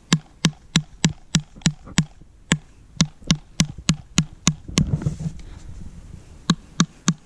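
Hammer driving short large-headed nails (20 by 3 mm) into a wooden fence post through the laminate edge of a paddock label: quick, even taps about three a second. The taps pause for about a second and a half midway, then resume.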